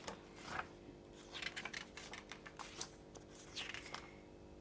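Pages of a plastic model kit's paper instruction manual being turned: a run of faint, irregular paper rustles and flicks.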